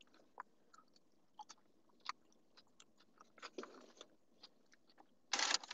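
A person chewing food with the mouth closed: quiet, irregular wet clicks and smacks. A louder rustle starts just before the end.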